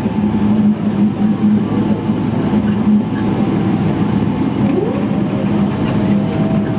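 Cabin noise of a Boeing 777-300ER taxiing, heard from a window seat over the wing: the steady hum of its GE90 engines at taxi power and the rumble of the airframe rolling. About five seconds in, a whine rises quickly and then holds steady.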